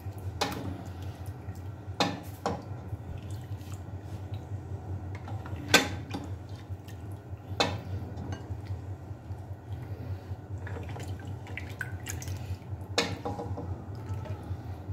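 A metal ladle scooping goat trotters and gravy out of an aluminium pressure cooker: scattered clanks and scrapes against the pot, the loudest about six seconds in, with gravy dripping and splashing back. A steady low hum runs underneath.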